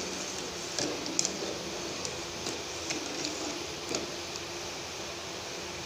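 Metal slotted spoon stirring sugar syrup in a metal pot, giving a few light clinks and scrapes against the pot over a steady hiss.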